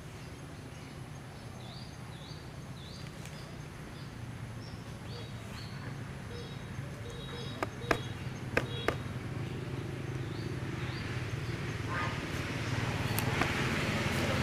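Forest ambience with a short, high, rising chirp repeating about twice a second through the first half. Three sharp clicks come just past the middle. Near the end, rustling grows louder as a macaque moves quickly through leaf litter and undergrowth.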